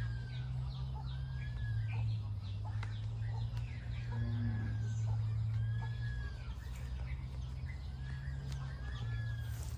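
A bird calling over and over, each call a drawn-out note that rises and falls and comes every second or two, over a steady low hum.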